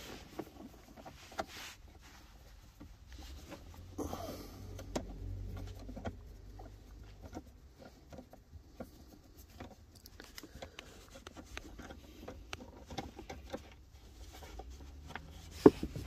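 Faint, scattered clicks and ticks of a hand nut driver with a 7 mm socket working the bolts under a plastic steering-column cover, with a low rumble in the middle.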